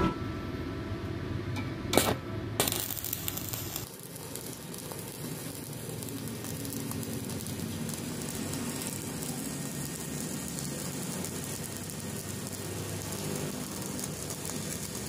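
Stick (shielded metal arc) welding with an iBELL IBL M250-104 inverter welder: the electrode is struck about two seconds in, then the arc crackles and sizzles steadily as a fillet bead is run along a steel T-joint.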